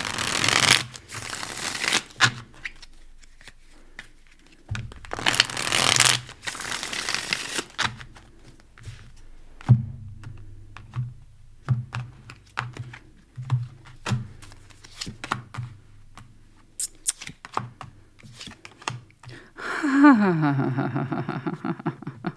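A deck of tarot cards riffle-shuffled in two rushes of about two seconds, at the start and again about five seconds in. Cards are then dealt and set down on the table in scattered light taps. A short voiced sound comes near the end.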